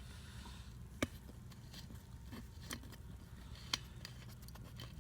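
Faint metallic clicks and light scraping of a valve core remover being turned in a quad tyre's valve stem, with two sharper clicks, one about a second in and one near the end.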